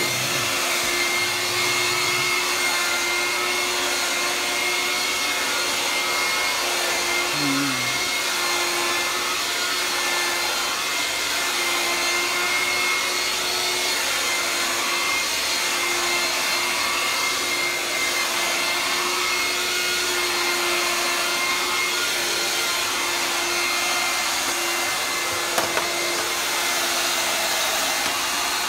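Handheld vacuum cleaner running steadily, its nozzle drawn through a German Shepherd's coat: a constant motor hum with a high steady whine, and a single light knock near the end.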